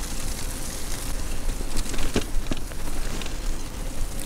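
Bicycle tyres rolling over a wet, muddy trail under a steady rumble of wind on the microphone, with two short knocks a little after two seconds in.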